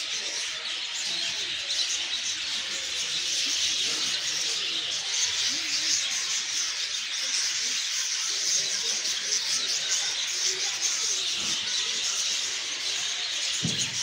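A large flock of budgerigars chattering and chirping without a break, many birds calling over one another.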